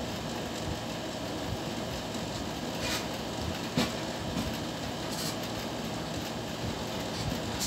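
Steady background noise, a low rumble with hiss over it, broken by a few brief clicks about three, four and five seconds in.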